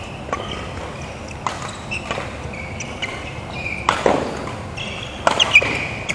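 Badminton rally: sharp racket strikes on the shuttlecock every second or so, with sports shoes squeaking on the court floor between shots.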